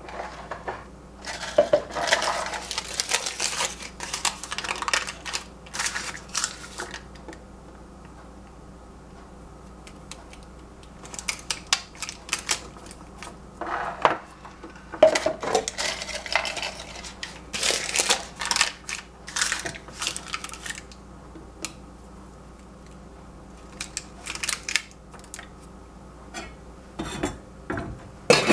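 Small glass jars being handled: paper crinkled and pressed over their mouths, and glass clinking and knocking as the jars are set down on the stovetop. The sounds come in several bursts with short pauses between them.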